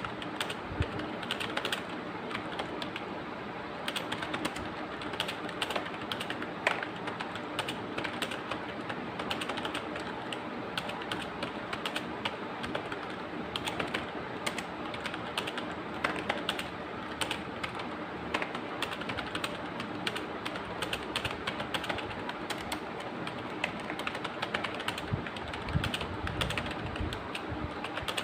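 Fast, continuous typing on a computer keyboard at about 65 words a minute: a dense, uneven stream of key clicks, several a second, over a steady low hum.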